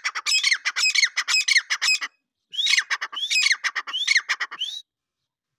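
Grey francolin calling loudly: a rapid run of repeated, rising-and-falling notes in two bursts, with a short break about two seconds in, stopping shortly before the end.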